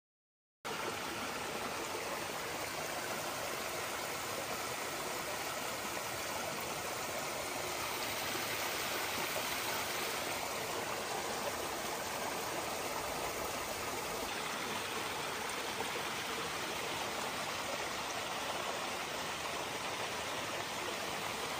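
A small stream of water running over rocks: a steady, even rushing that begins a moment in and goes on unchanged.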